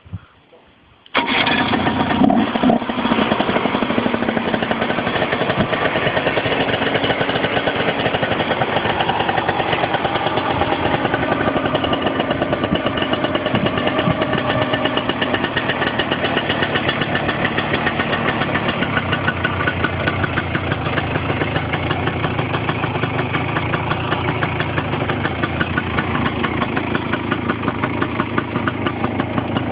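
Cagiva Mito Evo 125's two-stroke single-cylinder engine idling steadily through its twin Arrows exhaust. The engine sound cuts in abruptly about a second in.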